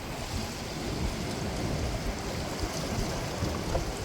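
Steady outdoor noise of wind rumbling on the microphone, with ocean surf washing behind it.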